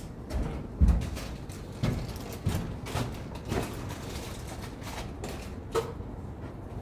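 About seven irregular dull thuds and knocks, the loudest about a second in.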